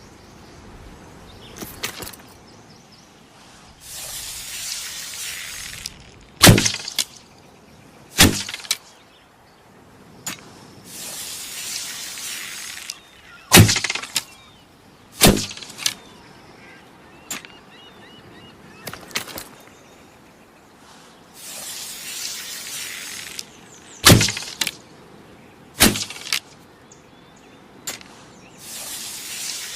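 Bow and arrow sound effect repeated three times: each round is a couple of seconds of hissing rustle followed by a sharp crack, and a second crack about two seconds later.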